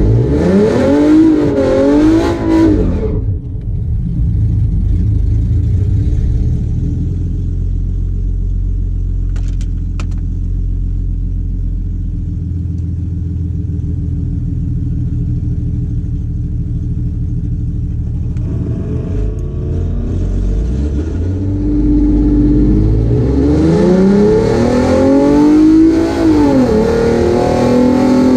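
Car engine revving up and down, then running at a steady lower note, then accelerating with rising pitch, dropping once as a gear is changed about 26 seconds in, and climbing again near the end.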